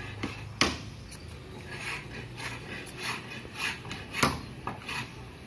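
A hammer knocking on old scrap-wood boards a few times, the sharpest blows about half a second in and about four seconds in, with fainter knocks and scraping of boards being handled in between.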